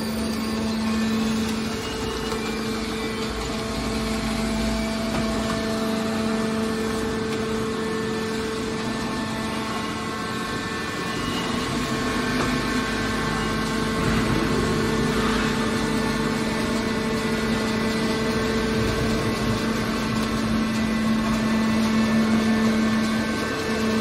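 Hydraulic scrap metal baler's power unit running: a steady machine hum from the electric motor and hydraulic pump, with a few held tones.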